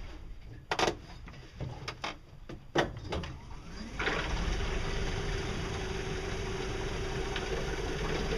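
A few clicks and knocks, then about four seconds in the boat's electric motor starts and runs steadily under solar power, a constant hum over the wash of the water.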